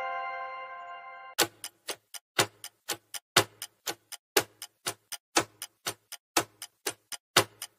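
The tail of a ringing chime fades out, then a clock-style ticking starts about a second and a half in, about four ticks a second: a quiz countdown timer sound effect running while a question waits to be answered.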